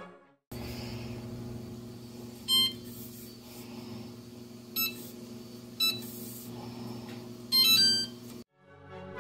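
An electric oven's control panel beeps as its keys are pressed to set the bread-proof mode: three short beeps, then a longer beep near the end. A steady low hum runs underneath.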